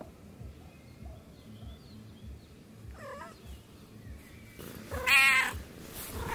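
Domestic cat meowing twice: a short meow about three seconds in, then a louder, longer, wavering meow about five seconds in.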